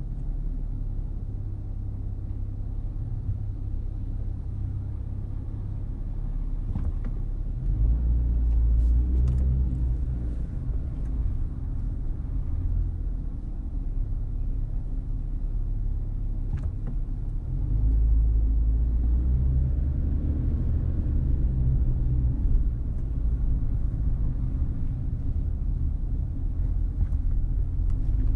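Low, steady rumble of a car being driven slowly, heard from the car carrying the camera: engine and road noise, growing louder for a stretch about a third of the way in and again from about two-thirds through, with a few faint clicks.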